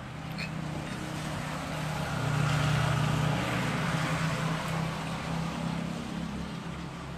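A motor vehicle's engine running with a steady low hum, growing louder about two seconds in and then easing off slightly.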